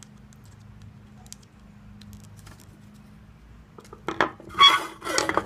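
A few faint ticks of the soldering iron's tip set screw being tightened with a small screwdriver. About four seconds in comes a loud burst of metallic clinking and clattering as the tools are handled and put down.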